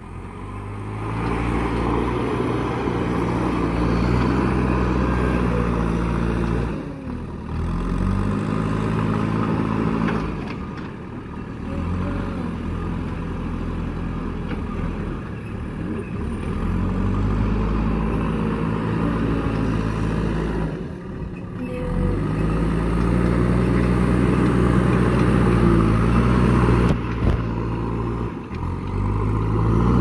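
JCB 3DX backhoe loader's diesel engine working hard, its pitch rising and falling again and again as the throttle is opened and eased. The sound drops out for a moment several times.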